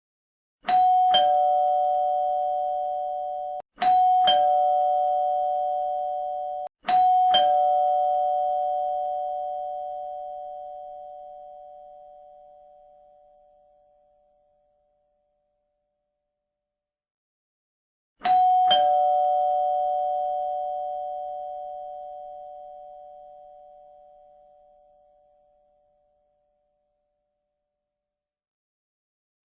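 Two-note chime doorbell ringing ding-dong four times: three rings in quick succession, the first two cut short by the next, then after a pause a fourth ring that fades out slowly.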